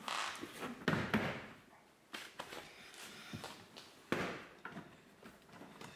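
Plastic door-trim panel of a Nissan Frontier crew cab being pried off the door by hand: several sharp pops and knocks as its plastic retaining clips snap free, the loudest about a second in and about four seconds in.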